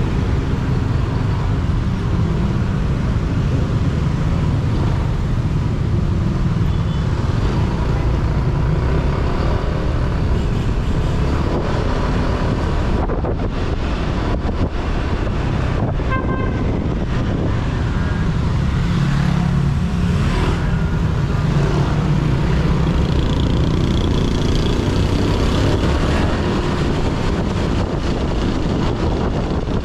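Motorcycle being ridden on city streets: steady engine and road noise with wind on the microphone, and other traffic around it.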